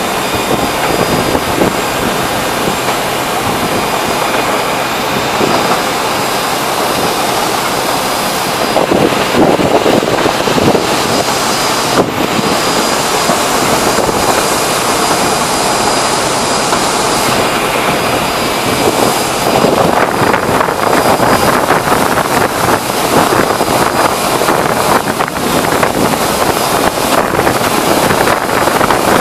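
Sugar-mill cane preparation machinery (cane carrier and rotating cane knife sets) running with a loud, steady rushing noise and a faint high whine, growing rougher about two-thirds of the way through.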